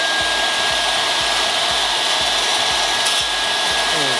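Table saw running steadily at speed with nothing being cut: an even motor and blade whine.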